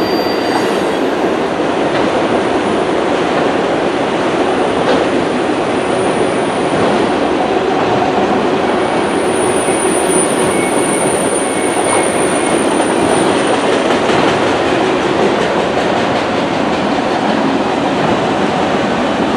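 Freight train's autorack cars rolling past: steady wheel-on-rail rumble with clickety-clack over the rail joints, and a thin high wheel squeal coming and going in the middle.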